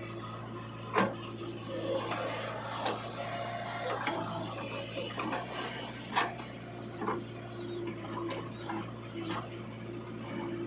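Small motor humming steadily under scattered sharp clicks, knocks and scraping, a few of the knocks standing out clearly.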